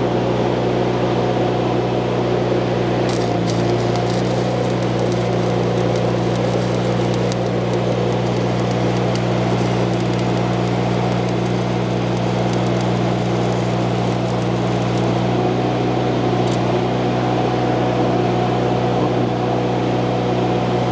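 Stick-welding arc crackling and sizzling steadily as a bead is run, with a few sharper pops, over the steady hum of the welding machine.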